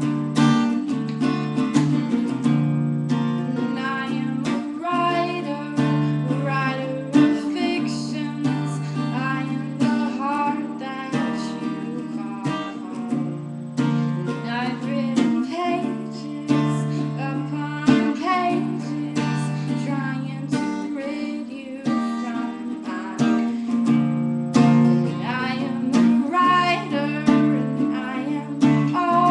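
Acoustic guitar strummed steadily, with a woman singing over it.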